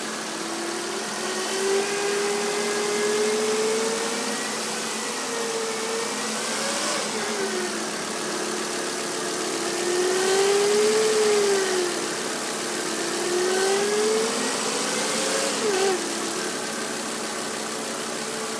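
Volvo V50 T5 engine, a turbocharged five-cylinder, running while the revs are raised and lowered slowly, with a clear tone that rises and falls with them. This is the engine noise the owner reports as a problem.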